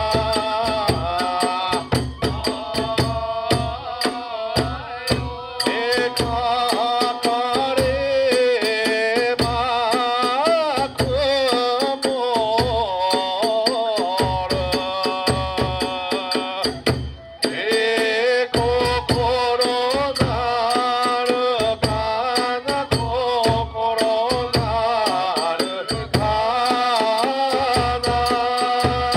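Kagura music: a wavering flute melody over steady big-drum beats, with sharp clattering strokes of hand cymbals and small drum. The music breaks off briefly about seventeen seconds in.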